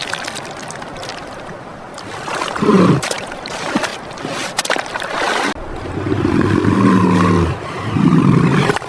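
Low, pitched calls from a large animal over a steady wash of moving water: a short call about two and a half seconds in, a longer one in the second half, and another short one near the end.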